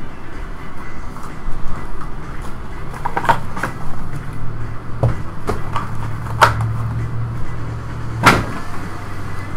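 Cardboard and packaging of a sports-card hobby box being handled and opened: scattered clicks and knocks, with sharper snaps about three seconds in, just past six seconds and past eight seconds, over a low hum for part of the time.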